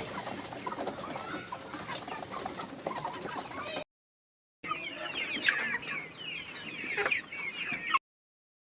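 Caged improved Kienyeji chickens clucking and calling in short high chirps, busier in the second half. The sound cuts out completely twice, briefly, at edits.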